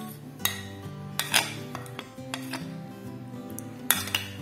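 Metal spoon clinking and scraping against a small glass jar as ketchup is scraped out of a sachet into it, a few sharp clinks with the loudest about a second in and another near the end, over background music.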